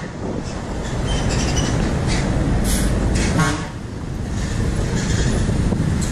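Roadside traffic: motorbikes and other vehicles passing with a steady low rumble, and a short horn honk about three and a half seconds in.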